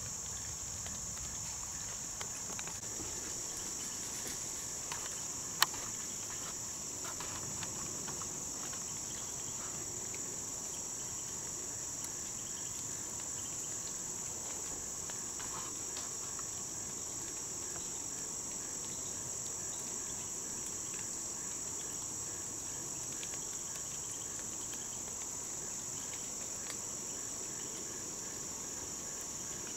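Steady, high-pitched chorus of insects in the woods, unbroken throughout. A single sharp click about five and a half seconds in.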